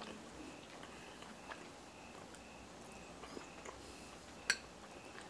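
Quiet chewing of food with small wet mouth clicks, and one sharper click about four and a half seconds in.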